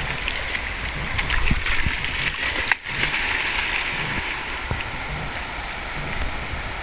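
A dog splashing into a river and swimming, with water slapping and churning around it, heaviest in the first few seconds. A single sharp click cuts in about two and three-quarter seconds in, over a steady low rumble.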